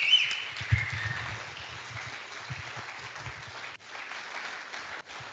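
Audience applauding at the end of a talk, loudest at the start and then steady. The sound cuts out briefly twice near the end.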